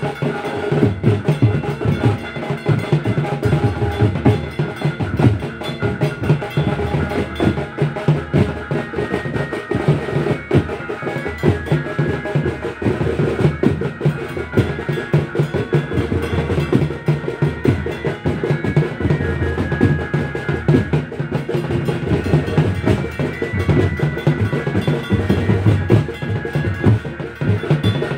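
Fast, continuous ritual drumming, the strokes running on without a break, with a thin ringing tone above them.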